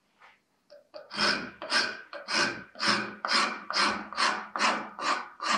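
Half-round wood rasp stroked back and forth across Rhodesian teak knife-handle scales, rough-shaping them. After a faint first second, it settles into a steady rasping rhythm of about two strokes a second.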